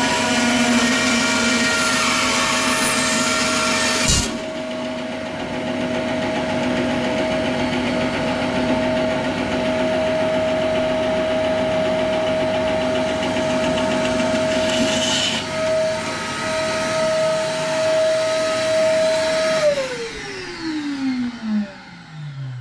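Belt grinder motor running at a steady pitch, with louder grinding noise for the first four seconds and briefly around 15 seconds in. About 20 seconds in it is switched off and spins down, its pitch falling steadily until it stops near the end.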